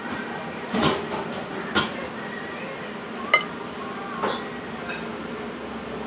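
Metal fork clinking against a plate: about four sharp clinks a second or so apart, with a short ring after the third, over a steady background din.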